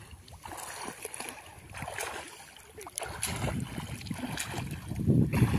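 Water splashing and sloshing as swimmers kick and paddle, getting louder about three seconds in.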